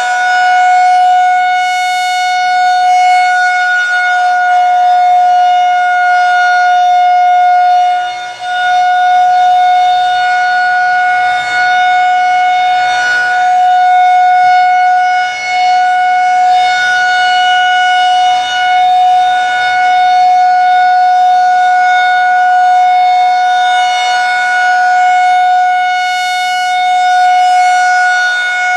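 Federal Signal 2001-130 electromechanical outdoor warning siren sounding a steady alert tone during a routine test. The pitch holds level while the loudness swells and dips every few seconds as the rotating siren head sweeps past.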